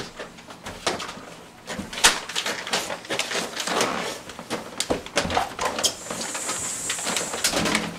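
A front door opening and someone coming in with a cardboard box: a string of irregular knocks, clicks and rustling in a small hallway.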